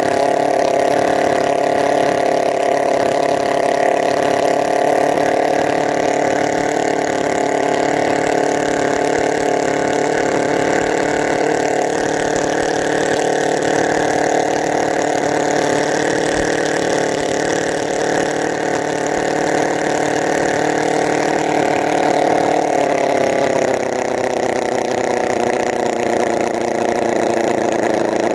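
Enjomor 36cc four-cylinder four-stroke model engine running steadily, freshly rebuilt with new connecting rod bushings; its speed drops slightly about 23 seconds in.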